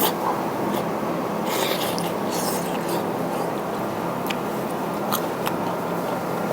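Someone eating over a steady background hum: a few short clicks, such as chopsticks on a bowl, and a couple of brief slurping or sucking sounds.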